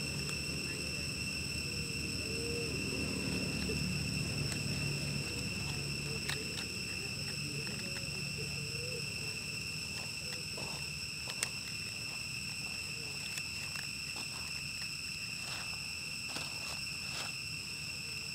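Steady high-pitched insect drone, one held whine with overtones, over a low background rumble. Faint scattered ticks and rustles in the second half, with one sharp click about eleven seconds in.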